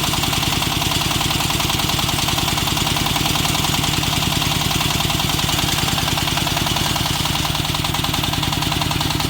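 Engine of a portable water-well drilling rig running steadily at a constant speed, with an even, fast firing pulse.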